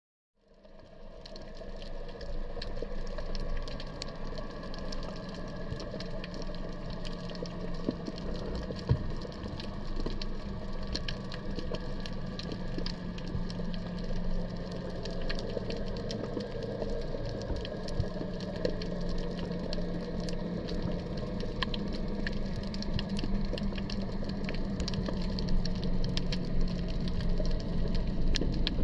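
Underwater ambience picked up by a camera: a steady low hum under dense crackling and clicking, fading in from silence over the first second or two.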